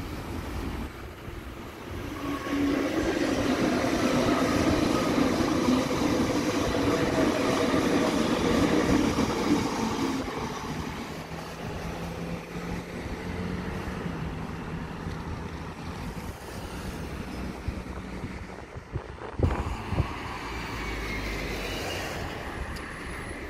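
Electric suburban train running along the tracks, loudest for several seconds about two seconds in, then fading to a quieter steady hum as it moves away. A brief knock about twenty seconds in.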